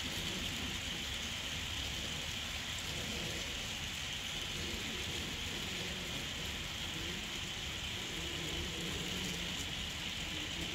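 HO scale ore cars rolling along model track, their metal wheels giving a steady, even hiss with a low rumble beneath.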